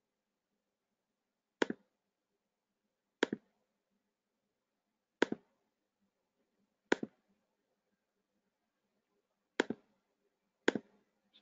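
Six sharp computer mouse clicks, each a quick press-and-release pair, spaced one to three seconds apart with near silence between.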